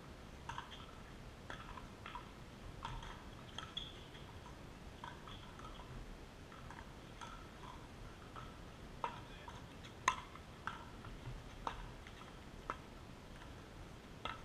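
Scattered sharp pocks of pickleball paddles striking balls, coming at irregular intervals. The loudest comes about ten seconds in.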